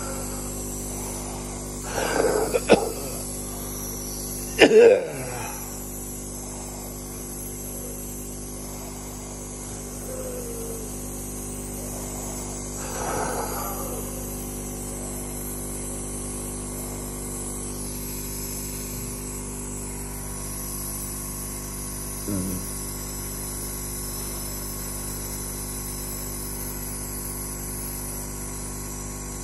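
A home nebulizer compressor runs with a steady hum, driving albuterol mist to the mouthpiece. Over it come a few loud, short bursts of forceful breathing through the mouthpiece, the loudest about five seconds in.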